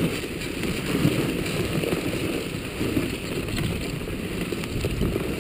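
Dog sled gliding along a packed snow trail: a steady rushing, scraping noise of the runners over the snow, with wind rumbling on the microphone.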